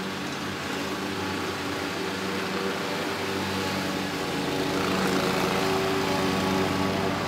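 Toro Z Master zero-turn riding mower's engine running steadily, growing louder about two-thirds of the way through.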